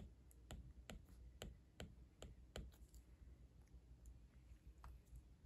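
Faint clicks of a stylus's hard tip tapping a tablet's glass screen as lettering strokes are written, about two to three a second, thinning out after about three seconds.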